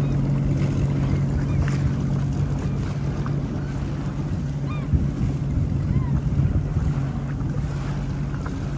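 Sea-Doo Fish Pro jet ski's engine running at a steady low hum, with wind on the microphone and water washing around the hull.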